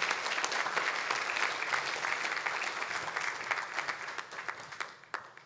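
Audience applauding, dense at first, then thinning out to a few scattered claps near the end.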